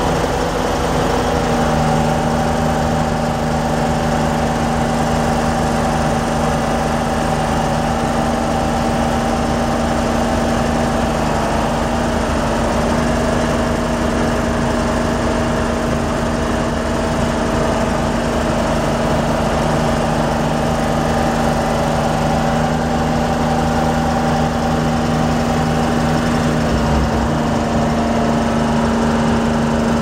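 Detroit Diesel two-cylinder two-stroke diesel engine of a Vermeer rock saw running steadily, with an even, unchanging pitch.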